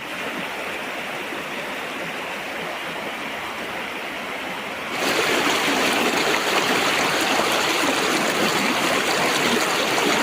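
Waterfall water rushing in a steady roar of noise, which gets suddenly louder and brighter about halfway through.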